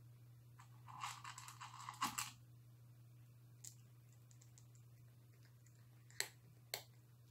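A cat crunching dry kibble. There is a quick run of crunching clicks about a second in, then a few scattered crunches, two sharp clicks near the end, and a faint steady hum underneath.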